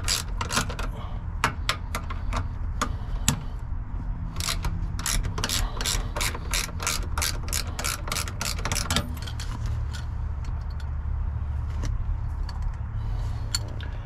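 Socket ratchet wrench clicking as a 13 mm bolt is backed out of the shifter base. The clicks come in quick runs of about three to four a second, then thin out near the end.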